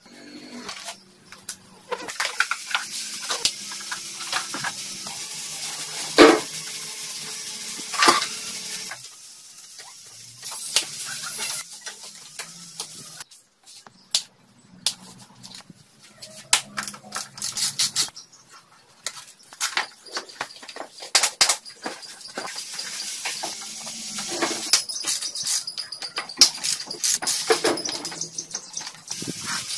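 Hand tools working on a Yamaha Serow 225's front end: a spanner clinking and scraping on bolts and clamps, with many scattered sharp clicks and two louder ringing metal clanks about six and eight seconds in.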